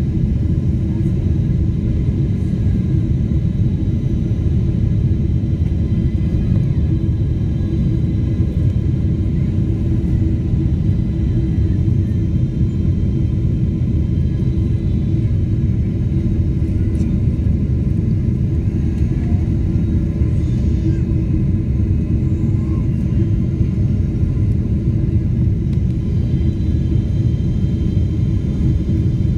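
Steady low rumble of an airliner's engines and rushing air, heard inside the passenger cabin on the descent to land, with a faint steady hum above it.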